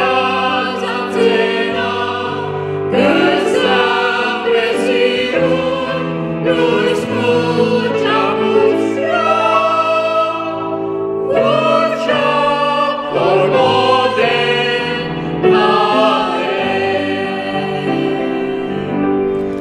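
Small mixed vocal group of two women and two men singing a hymn in parts, with piano accompaniment.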